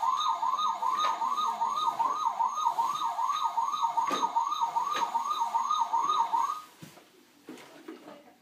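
Electronic toy siren of a Dickie Toys tow truck: a fast wailing sweep that repeats about three times a second, then cuts off suddenly near the end.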